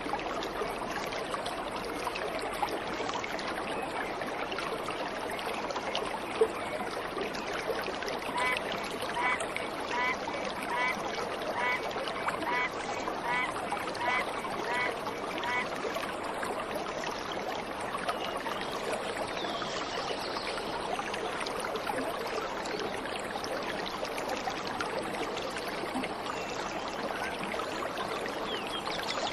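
Waterfall water rushing in a steady hiss. In the middle a bird repeats a short call about a dozen times in an even rhythm, and a few faint chirps follow.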